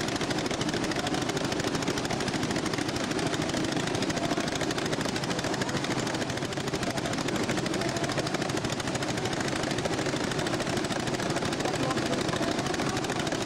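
A giant wooden noria (water wheel) of Hama turning: a steady, dense clatter of its wooden frame and scoops.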